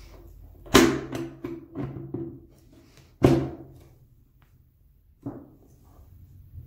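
Two sharp knocks about two and a half seconds apart, each ringing briefly, with lighter taps and clicks between and after: the parts of a HiKOKI C3606DA cordless circular saw knocking together as the motor unit is pressed into the housing until its bearing seats.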